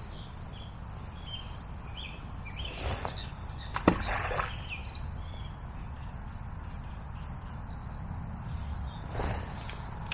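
Small birds chirping now and then over a low steady outdoor rumble, with a sharp knock about four seconds in, the loudest sound, and brief rustling around it and again near the end.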